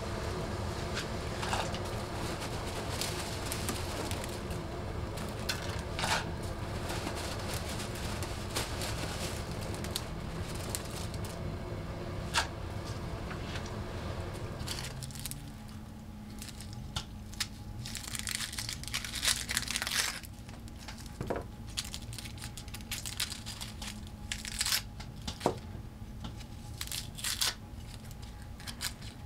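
An enamel pot of water boiling on a wood stove, a steady rumble with a few clicks. About halfway through it gives way to an onion being peeled with a small knife: dry onion skin crackling and tearing in many short, sharp bursts.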